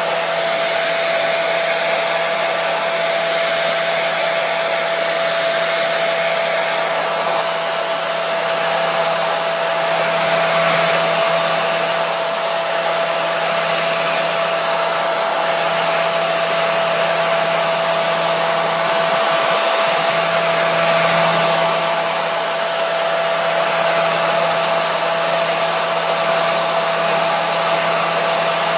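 Hair dryer running steadily on one setting: an even blowing hiss with a constant whine and a low hum from its motor.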